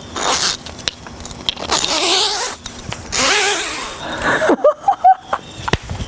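Long double-sided zipper on a fabric mesh garage door screen being pulled open, rasping along its teeth in three long pulls.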